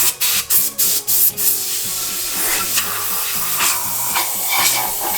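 Background music with a stepping bass line, over a rough hissing and rubbing noise that comes in quick strokes for the first second or so and then runs on steadily.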